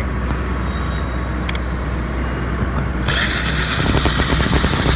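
Vehicle engine idling with a steady low rumble; about three seconds in, a loud steady hiss of air or spray starts over it.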